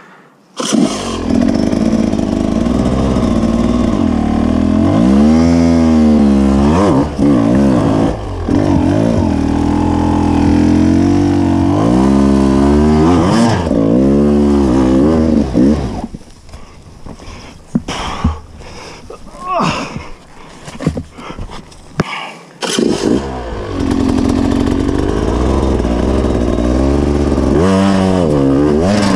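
Two-stroke enduro dirt bike engine cutting in suddenly about half a second in, then revving up and down repeatedly as it is ridden, easing off to a quieter, uneven running for several seconds past the middle before pulling hard again near the end.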